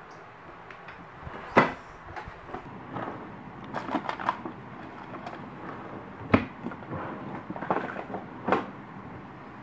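Rummaging by hand: three sharp knocks about a second and a half, six and a half and eight and a half seconds in, with lighter clicks and clatter between them as objects are moved and handled.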